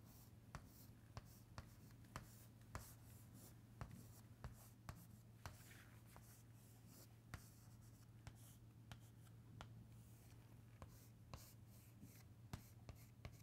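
Chalk writing on a chalkboard: faint, irregular ticks and short scratches as lines, arrows and boxes are drawn, over a steady low hum.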